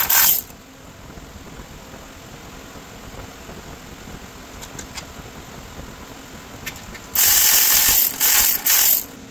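Cordless power driver spinning powerhead mounting bolts in, in short loud bursts: one at the start, then three in quick succession near the end, with a few faint clicks of handling in between.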